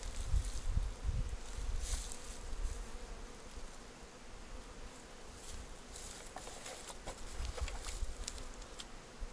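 Honeybees buzzing around the hives, with rustling and a few low bumps on the microphone.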